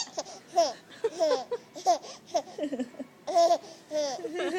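Baby laughing in many short breathy bursts, mixed with babbling.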